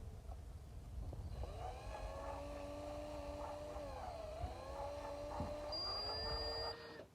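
A motor running with a steady pitched whine over a low hum; the pitch sags briefly about halfway through, then recovers, and the sound stops abruptly near the end.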